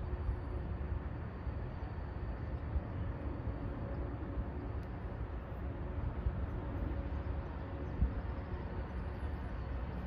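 Steady low rumble of outdoor urban background noise, with no distinct events.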